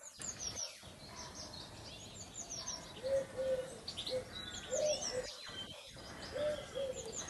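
Wild birds calling: quick, high, falling chirps repeat throughout, and from about three seconds in a lower call repeats over and over.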